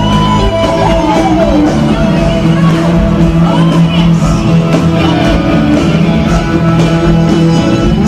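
Live concert recording of a band playing an upbeat pop-rock song, with shouts from the audience over the music.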